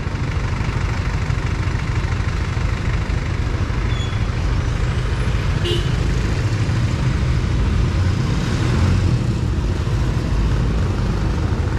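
Motorcycle being ridden in traffic: a steady, loud rush of engine, wind and road noise.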